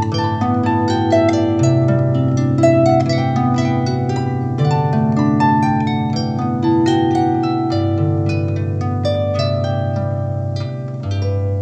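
Solo harp playing a flowing piece: a stream of quick plucked notes over low bass notes that change every second or two.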